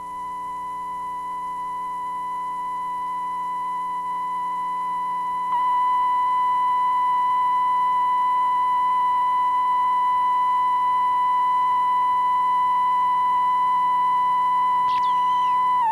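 Emergency alert attention tone: a steady, single-pitched tone of about 1 kHz, held for the whole stretch. It grows louder gradually, jumps up in level about five and a half seconds in, and cuts off near the end.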